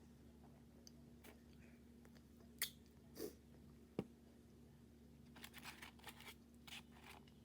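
Close-up eating sounds of a person biting and chewing crispy fried chicken wings: a few sharp crunches between about two and a half and four seconds in, then a run of crunchy chewing near the end, over a faint steady hum.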